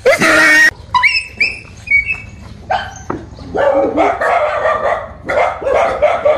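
Dog barking repeatedly at a stuffed tiger: a few high yelps first, then a run of short barks about half a second apart.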